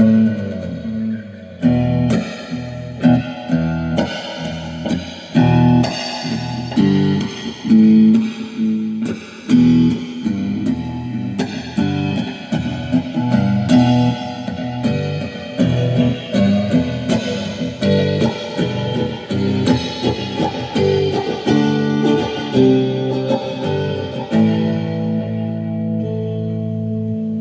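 Guitar improvising, a run of quickly picked single notes and chords; about three seconds before the end a chord is struck and left ringing.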